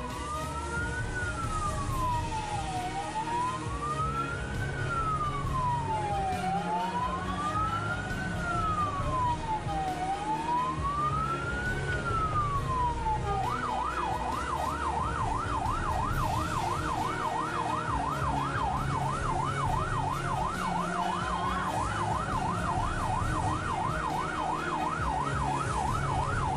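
Ambulance siren wailing in slow rises and falls, about one every three and a half seconds, then switching about halfway through to a fast yelp of about three cycles a second. Engine and road rumble from inside the ambulance's cab lies underneath.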